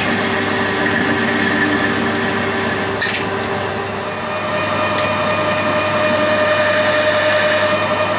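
Metal lathe running with its chuck spinning, a steady mechanical whine with several tones. A short click comes about three seconds in, and a new higher steady tone joins about halfway through as the turning tool comes up to the workpiece.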